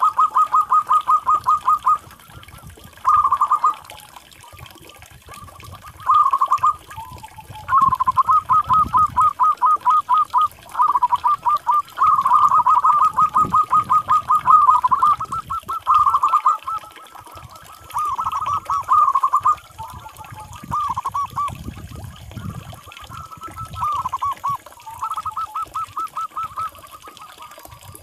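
Zebra doves (perkutut) cooing: repeated phrases of fast, evenly pitched pulsed notes, each phrase lasting one to four seconds, with short gaps between them.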